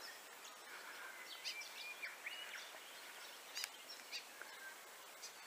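A few faint, scattered bird chirps and calls, one of them a short held note, over a quiet outdoor background hiss.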